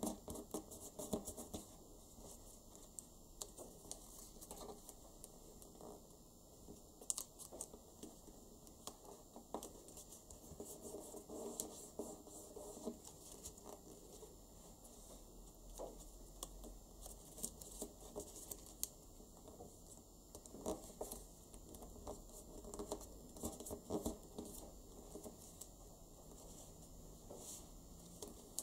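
Origami paper being folded by hand: faint, irregular crinkles, taps and scrapes as fingers press and crease the folds and the sheet slides on a wooden tabletop.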